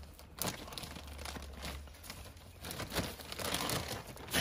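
Plastic bag of wood pellets rustling and crinkling as it is handled, with a few light clicks.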